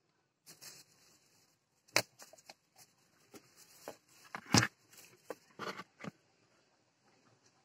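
Dry straw in a hen's nest box rustling and crackling as a hand reaches in among the eggs, with two sharper knocks about two seconds and four and a half seconds in.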